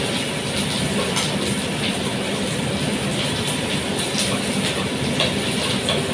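Steady rushing hum of a pot heating on a gas stove, with a few light knocks of a wooden spoon stirring in a metal saucepan.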